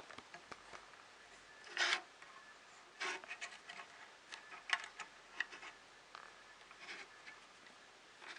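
Hands handling small 3D printer kit parts: a few scattered light rubs and clicks, with the longest rub about two seconds in.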